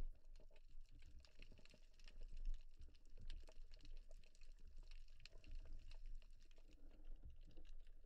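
Faint underwater ambience: scattered small crackling clicks over a low rumble of moving water.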